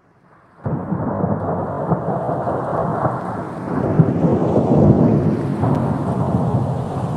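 A 250-size FPV quadcopter's brushless motors and propellers throttling up suddenly about half a second in as it lifts off, heard as a dense, loud rush of prop wash and wind buffeting the onboard GoPro Session's microphone.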